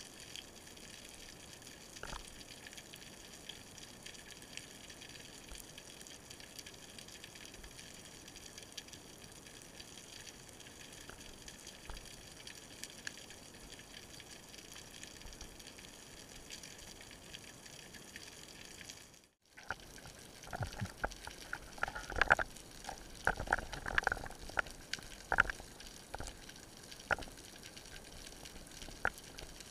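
Underwater sound picked up by an action camera in its waterproof housing: a steady faint hiss, then, after a short break about two-thirds in, irregular sharp clicks and knocks.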